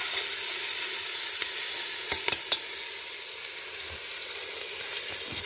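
Sliced onions sizzling steadily in hot oil in a cast-iron potjie pot, with a few sharp clicks about two seconds in.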